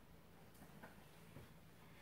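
Near silence: room tone, with a couple of faint soft ticks.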